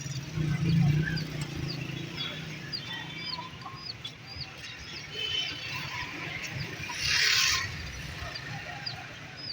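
Caged birds at a bird market calling, with a short high chirp repeating about once or twice a second and fowl-like clucking among them. A louder harsh call stands out about seven seconds in.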